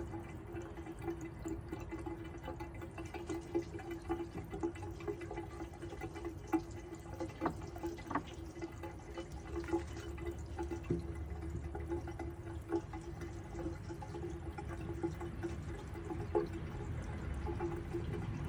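Water running and trickling in a John Douglas Lotus high-tank toilet, with a steady hum and scattered small drips and ticks.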